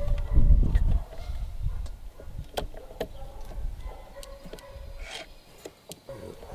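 Scattered light clicks and taps of hands handling the servos and linkage in a plastic radio box, after a low rumble that dies away about a second in.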